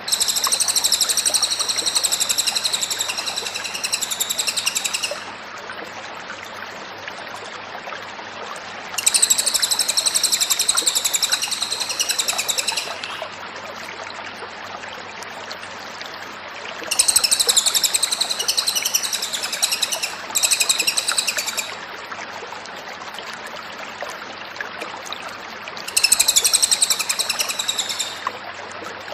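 Cililin songbird singing in bouts of rapid, high-pitched chirping. There are four bouts of a few seconds each, separated by steady background hiss.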